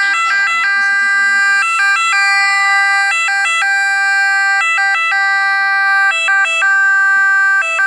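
Ambulance two-tone siren sounding as the ambulance arrives. It holds one pitch for long stretches, broken several times by quick runs of switching between its two pitches.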